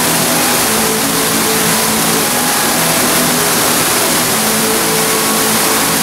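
Decorative artificial waterfall pouring from a ledge into a shallow pool: a steady, even rush of falling water.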